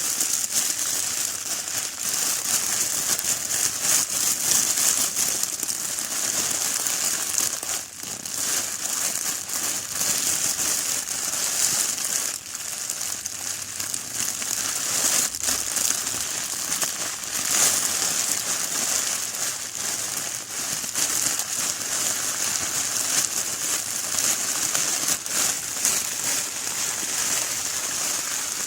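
Heavy rain pouring steadily, a dense hiss of drops with fine crackling throughout.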